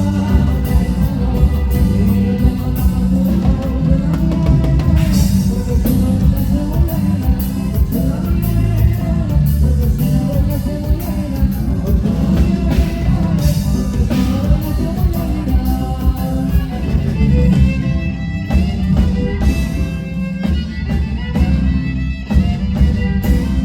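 Live band playing music, with drum kit beats and guitar and bass, and a pitched voice or instrument gliding in and out.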